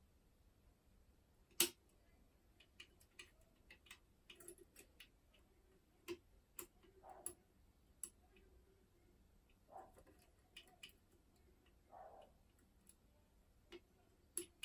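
Faint, irregular clicks and light scraping from a tension bar and pick wire working the levers inside a Yale 5-lever mortice lock, with one sharper click about a second and a half in.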